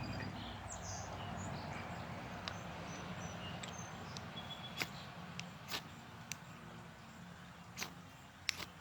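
Outdoor woodland ambience with short bird chirps over a steady rushing noise that slowly fades, and a few sharp snaps or crackles in the second half.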